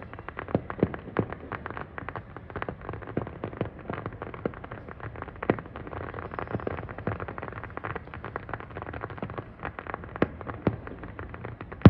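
Fireworks display heard from a distance: a dense, irregular crackle of many small bangs and pops, several a second, over a steady rumbling haze.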